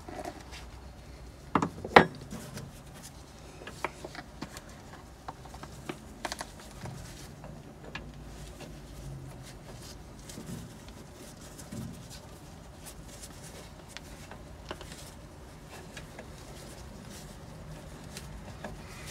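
Handling sounds of gloved hands fitting and threading a grease fitting back into the vibratory tumbler: scattered light clicks and rubbing, with two sharper clicks about two seconds in.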